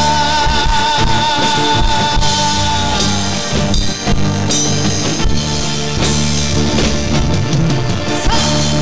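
Band music with a drum kit: the instrumental close of a romantic pop-rock ballad, a long held melodic note over the first three seconds.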